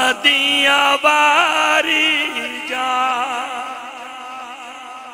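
A man's voice singing a melodic religious recitation, holding long notes that bend and waver in pitch. It is loudest in the first couple of seconds and softer after about three seconds in.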